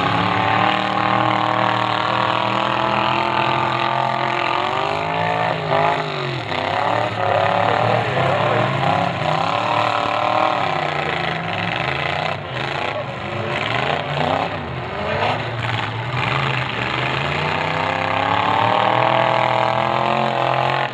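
Several demolition derby cars' engines running and revving at once, their pitch rising and falling as the drivers accelerate and back off.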